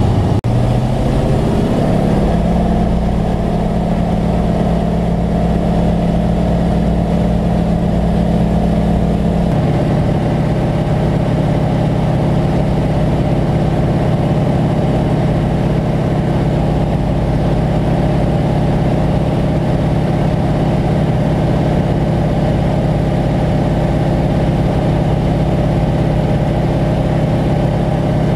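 Tow plane's radial piston engine and propeller running loud and steady, rising in pitch in the first couple of seconds, then changing tone about ten seconds in and holding steady.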